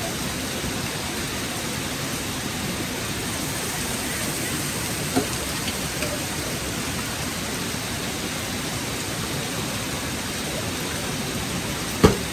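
Steady rain falling, an even rushing hiss. A small knock about five seconds in and a louder sharp knock near the end.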